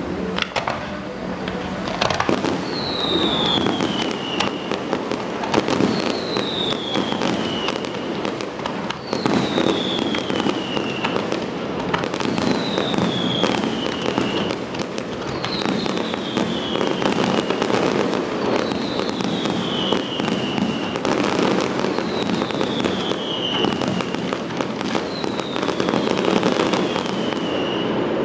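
Fireworks display: a steady stream of bangs and crackles from bursting shells. A falling whistle repeats about every three seconds.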